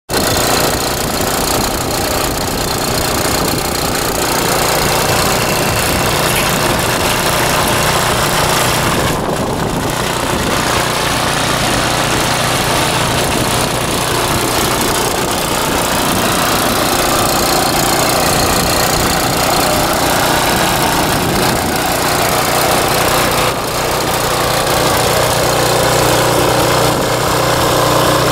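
Vintage Troy-Bilt Horse rear-tine tiller's small single-cylinder engine running steadily under load while its tines churn hard, dry soil. The sound starts abruptly, with brief dips in level about nine and twenty-three seconds in.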